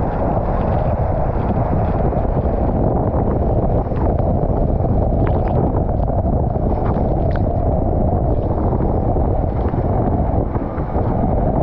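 Water rushing through an enclosed waterslide tube as a rider slides down it feet-first, heard up close as a loud, steady rush and rumble.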